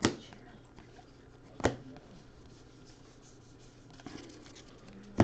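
Stack of Bowman baseball trading cards being flipped through by hand: light sliding rustle of card stock, with three sharp taps, one at the start, one about a second and a half in, and one at the very end.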